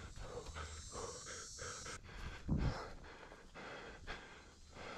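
A person breathing hard while walking through brush, with footsteps falling about twice a second and one heavier thump about halfway through.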